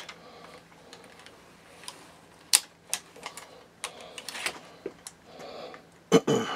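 Irregular sharp clicks and rattles from a pistol crossbow and a dial luggage scale as the crossbow string is drawn back with the scale to test its draw weight, with a louder short noise near the end.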